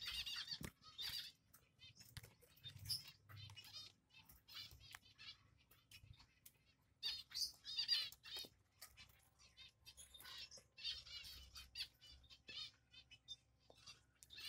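Finch nestlings giving bursts of high, rapid, wavering begging chirps, over and over, with sharp clicks and rustling from the grass nest in between.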